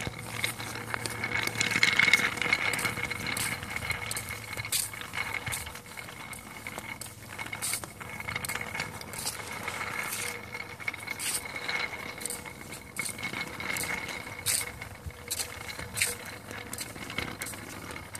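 A wooden pull-toy train dragged on a string over a concrete sidewalk. Its wooden wheels rattle as it rolls, with sharp irregular clicks about once or twice a second.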